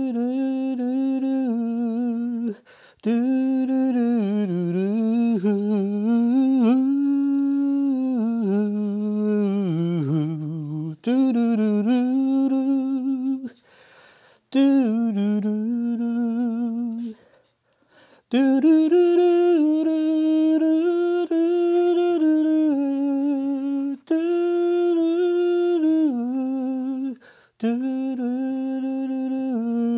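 A man humming a tune without words, in phrases a few seconds long broken by short pauses, the melody rising and falling.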